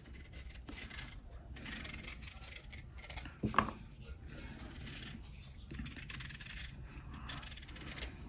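Sharp kitchen knife scraping and slicing along the tough peel of an unripe green banana, with the soft rubbing of hands on the fruit. One sharper tap about three and a half seconds in.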